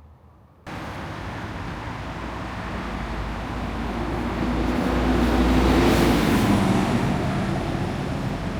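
Train rumbling on the rails. The noise starts abruptly, swells to its loudest about six seconds in, then eases a little.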